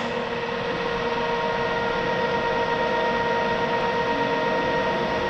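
Radial arm drill press running under power, its spindle motor and gearhead giving a steady hum with a constant whine.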